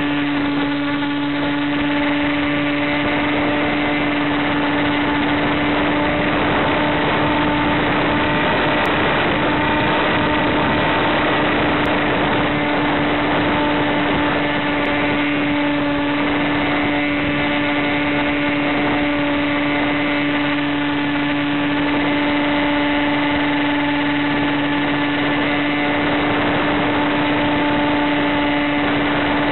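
Electric RC plane's motor and propeller running at a steady cruising throttle, heard from on board: one constant humming tone over a rush of wind noise.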